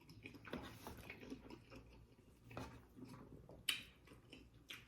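Faint chewing and mouth noises close to the microphone, with a sharp crisp click about three and a half seconds in and a smaller one near the end.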